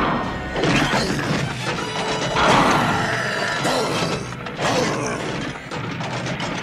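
Cartoon soundtrack of a giant robot battle: mechanical clanking and crashing sound effects mixed with music.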